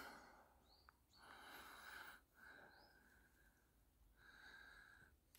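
Near silence, with three faint breaths close to the microphone: a longer one about a second in, a short one just after, and another near the end.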